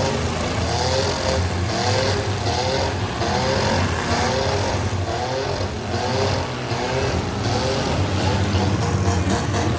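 Demolition derby cars' engines revving hard over and over, each rev a short rise in pitch, over a steady loud rumble of motors.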